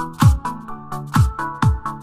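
Background electronic dance music with a steady kick drum at about two beats a second under synth chords.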